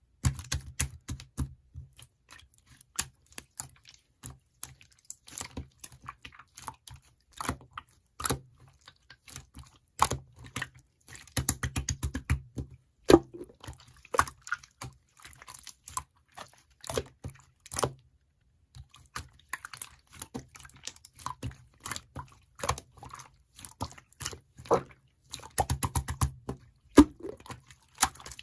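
Dense, irregular clicks and crunchy crackles close to the microphone, in a small room.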